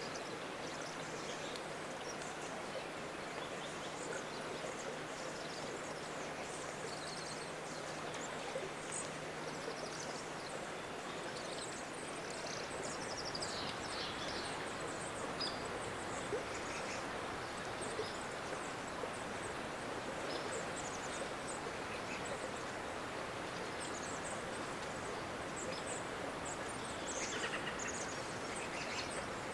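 Steady hiss of rain falling in a wet forest, with many short, thin, high bird calls scattered through it.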